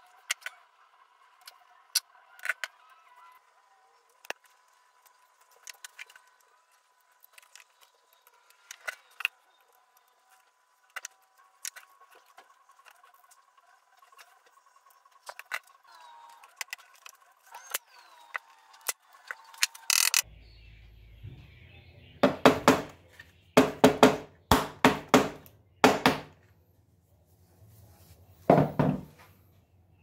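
Faint small clicks and taps of hands handling thin wires and a microswitch. About two-thirds of the way in a low hum comes on, and a run of loud sharp clicks or knocks follows, several close together, with one more near the end.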